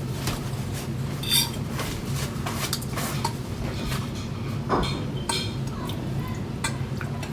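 Forks clinking and scraping against plates while spaghetti is eaten: scattered light clinks about every second, over a steady low hum.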